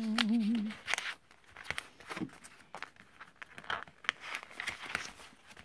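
A short hummed note that wavers in pitch, then paper bills and envelopes rustling and crinkling, with small clicks and taps as they are slid into a wallet.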